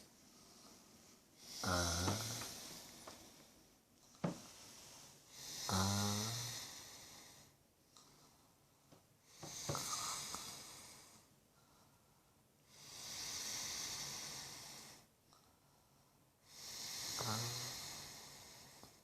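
A woman snoring in her sleep, about one breath every four seconds. Some breaths carry a low, buzzing rattle and others are only a breathy hiss, with a couple of short clicks in between.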